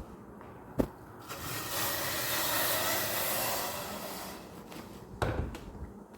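A sharp knock, then a rushing hiss that swells and fades over about three seconds, then another knock.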